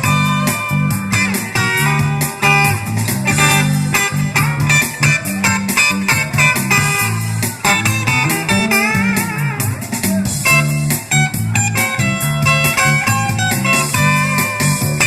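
Music with guitar over a bass line that changes note every fraction of a second.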